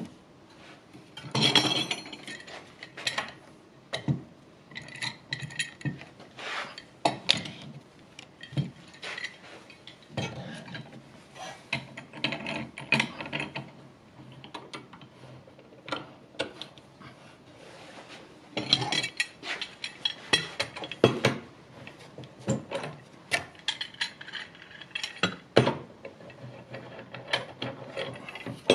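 Steel G-clamps being handled and screwed tight onto a wooden batten on a wooden workbench: a run of irregular clicks, knocks and clatters of metal against wood.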